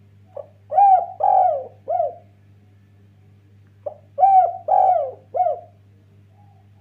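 Spotted dove (derkuku) cooing: two phrases about three and a half seconds apart, each a short note followed by three drawn-out coos. Fainter coos sound between the phrases over a steady low hum.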